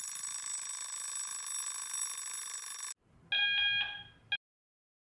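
A bell rings continuously for about three seconds and cuts off sharply, like an alarm clock or telephone bell. After it comes a shorter pitched tone that pulses three or four times and fades, then a brief sharp burst.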